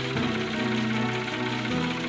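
Background music: an instrumental track with sustained chords that change twice.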